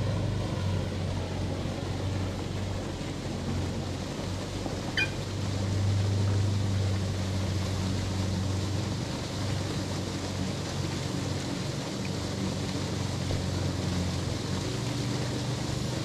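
A steady low motor-like hum over an even hiss, swelling slightly now and then, with one short sharp high chirp or click about five seconds in.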